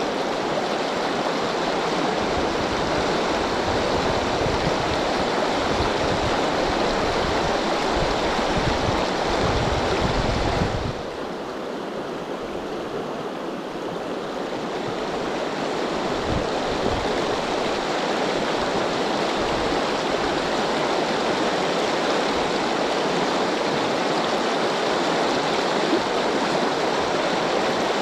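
Rushing water of river rapids, a steady loud wash with irregular low rumbles on the microphone. It turns briefly quieter and duller about eleven seconds in, then builds back up.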